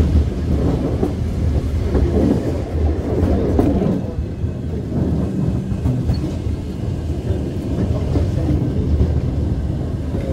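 Tram running along its track: a steady low rumble with a few short clicks from the wheels and running gear.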